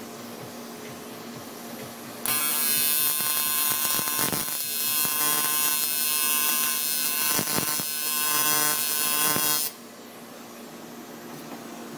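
TIG welding arc buzzing on a 3-inch intake hard pipe: it strikes about two seconds in, holds a steady buzz with a hiss for about seven seconds, and cuts off abruptly near the end. A low steady hum runs underneath throughout.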